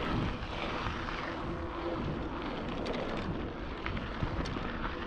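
Mountain bike rolling fast down a dry dirt trail: steady wind rushing over the action camera's microphone with tyre and chassis rumble, and a few small clicks and rattles from the bike.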